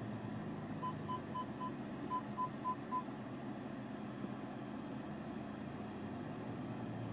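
Audi parking-sensor warning beeps: two runs of four short, high beeps, the first about a second in and the second a moment later, over a steady low hum of the car running.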